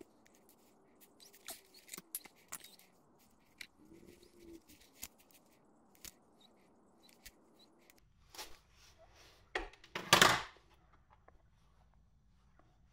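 Small clicks and ticks of a power cord, plug parts and hand tools being handled and worked, with one louder brief noise about ten seconds in.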